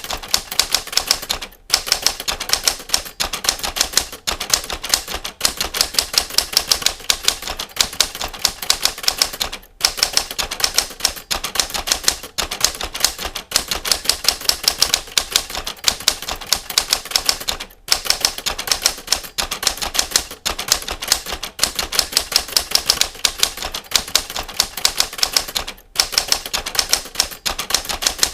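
Typewriter keys striking in a fast, steady clatter of many clicks a second, broken by brief pauses about every eight seconds.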